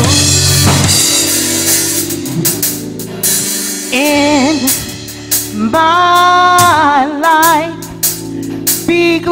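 Gospel praise team of women singing into microphones, held phrases with vibrato, over an amplified band with drums. The voices drop back in the middle and return about four seconds in, again near six seconds, and once more near the end.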